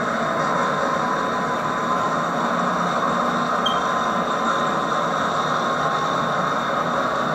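HO-scale model freight train rolling past on its track: a steady rolling rumble of wheels and motor, heard under the hiss of an old VHS tape recording.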